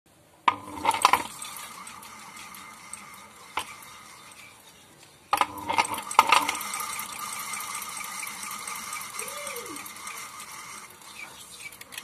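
National ceiling fan motor's outer rotor casing spun by hand on its bearings, twice: each push starts with a few sharp knocks, then a steady whir that slowly fades as the casing coasts.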